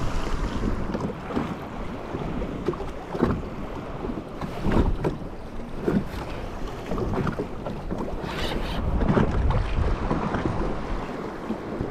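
Wind buffeting the microphone over choppy sea, with waves slapping irregularly against a fishing kayak's hull.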